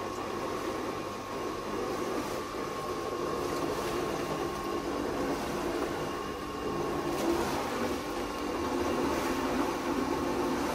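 Swimming pool circulation pump running steadily, with water rushing through the plastic pipework and a thin steady whine over the noise. It grows a little louder about seven seconds in.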